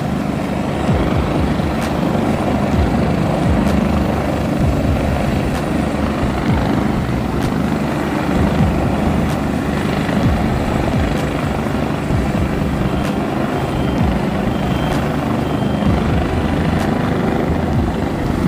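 Helicopter running on a rooftop helipad before lift-off, a steady rotor and engine noise heard from a distance, mixed with wind on the microphone.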